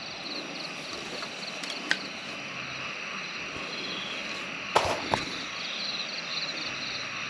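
Night chorus of calling frogs and insects: repeated trains of high, rhythmic chirps over a steady background. A few sharp clicks or knocks come about two seconds in and again near five seconds.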